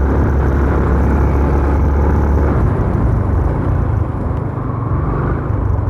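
Yamaha Sniper 150's single-cylinder engine running under the rider on an uphill road. The low rumble drops off about two and a half seconds in as the bike eases off to slow down.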